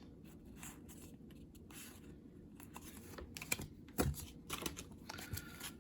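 Faint scattered taps and light scratching from trading cards and their foil booster pack being handled, with a few sharper clicks in the second half.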